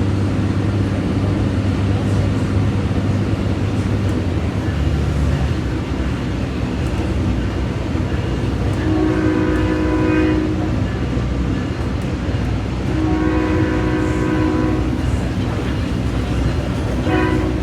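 SMART diesel commuter train running, heard from aboard, with a steady engine and rail rumble whose note shifts about five seconds in. Its horn sounds two long blasts, about nine and thirteen seconds in, and a short one near the end: the start of the grade-crossing signal.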